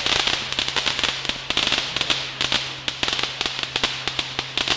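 Fireworks going off: a rapid, dense string of cracks and pops with swelling hiss, several reports a second.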